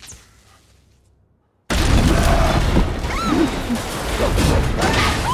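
Film action sound effects: a dusty rumble fades away to silence, then about a second and a half in a sudden loud wave of crashing, rumbling destruction breaks in, with people screaming in panic over it.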